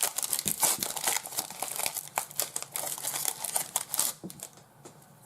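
Crinkling and tearing of a trading card pack wrapper being ripped open by hand. The dense crackle stops about four seconds in.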